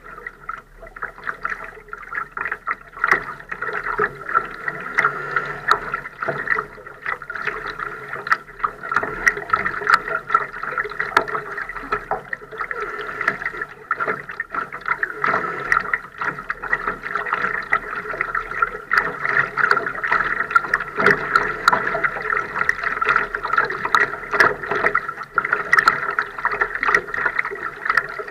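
Water lapping and splashing against the hull of a Laser sailing dinghy under way: a steady wash with many small, irregular splashes.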